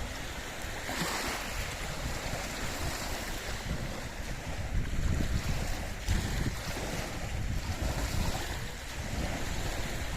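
Lake waves washing against the shore in swells, with gusty wind rumbling on the microphone.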